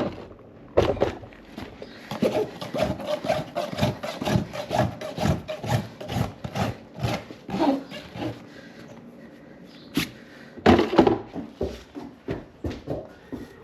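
Farrier's rasp scraping across a horse's hoof in quick repeated strokes. The strokes pause for a couple of seconds, a sharp click comes, then the strokes start again.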